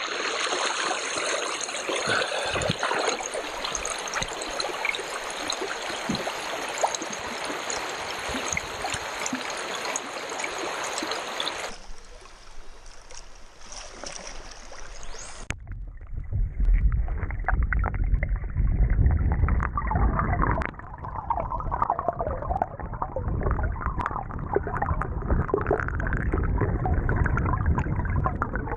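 Shallow rocky stream running over stones. About halfway through the sound turns muffled and deep, the water heard from under its surface, with a few faint ticks.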